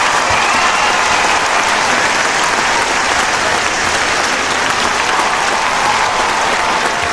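Large crowd applauding steadily in dense, continuous clapping, with faint cheering voices rising through it.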